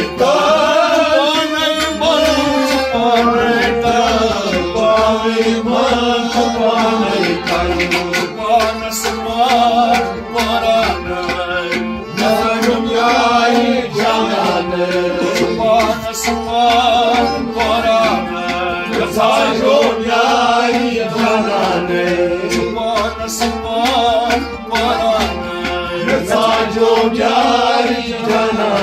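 Devotional Sufi song: singing with melodic accompaniment over a steady, even drum beat.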